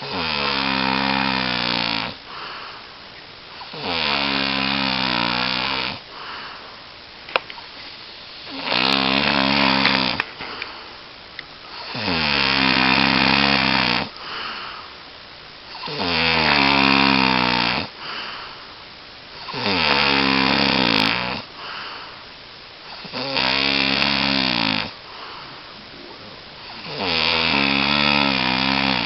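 A sleeping person snoring: eight long, loud snores of about two seconds each, one roughly every four seconds, with a much quieter sound between them.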